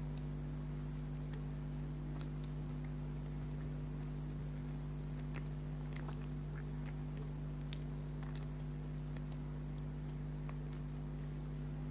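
A person chewing food close to the microphone, with small scattered mouth clicks, over a steady low electrical hum.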